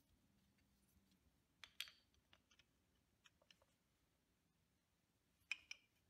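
Brake pad's metal backing plate clicking against a Honda Africa Twin front brake caliper as the new pad is fitted into it by hand. A few short sharp clicks: a pair about two seconds in, fainter ticks after, and another pair near the end.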